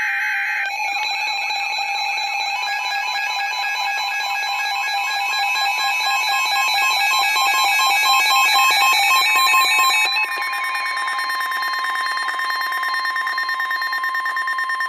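Weather radio sounding the emergency alert alarm for a severe thunderstorm warning: a loud, warbling electronic alarm that settles into a steady high tone about ten seconds in.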